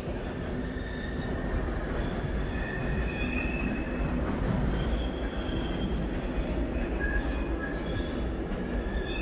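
Wheels of a departing SBB passenger train squealing as it runs out over curving track and points. Short high squeals come and go over a steady low rumble.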